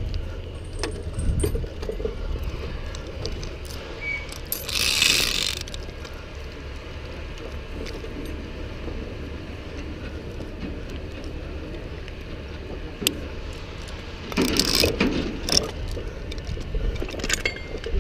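Steel chain and rigging hardware of a 3/4-ton chain hoist clinking and jangling as it is handled, over a steady low rumble. Louder scraping rushes come about five seconds in and again about fifteen seconds in.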